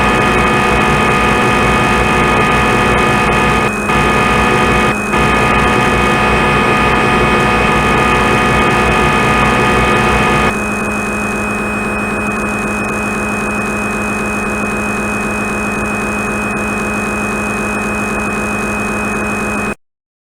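CNC lathe simulator's synthetic machining sound: a steady spindle hum with a cutting whine on top, briefly interrupted twice. About halfway through the cutting tones stop and only the quieter spindle hum continues. Near the end it stops abruptly.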